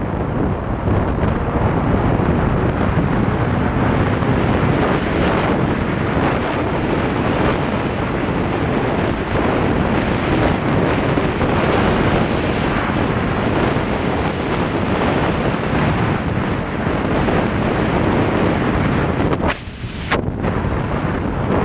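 Wind buffeting the microphone of a camera on a moving snowmobile, with the snowmobile's engine and track running underneath at speed. The noise drops briefly for about half a second near the end, then comes straight back.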